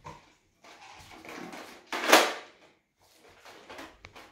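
A toy foam-dart blaster (Nerf gun) being fired: one sharp clack about two seconds in, with softer handling clatter around it and a small click near the end.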